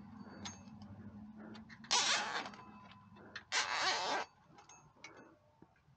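A nylon zip tie ratcheting through its head as it is pulled tight, two short zips about a second and a half apart.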